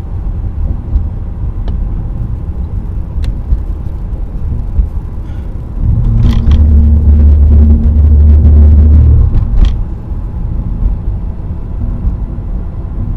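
Road noise of a car driving, heard from inside the cabin: a steady low rumble that grows louder for about four seconds midway, then eases back.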